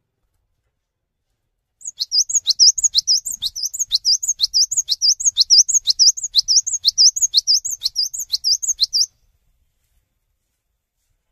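Cinereous tit (gelatik batu) singing, repeating one high, sharp sweeping note quickly, about three times a second, for some seven seconds, then stopping abruptly.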